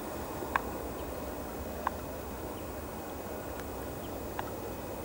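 Steady outdoor background hiss, broken by three short, sharp ticks: one about half a second in, one near two seconds, and one past four seconds.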